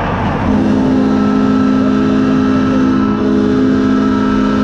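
Arena goal horn sounding one long steady blast, starting about half a second in, over crowd noise, marking a goal just scored.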